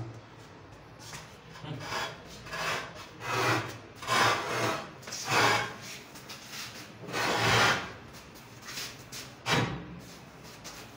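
A hand rubbing along the edge of a marble countertop slab: a series of rough rubbing strokes, about one a second, loudest in the middle with one longer stroke.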